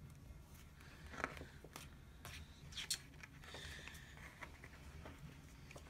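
Faint paper handling: a sticker pressed onto a planner page and the pages of a sticker book flipped over, soft rustles with two louder clicks about a second and three seconds in.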